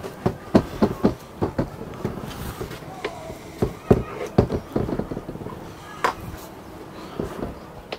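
A run of irregular knocks and clicks, as of hard objects being handled, with faint voices underneath.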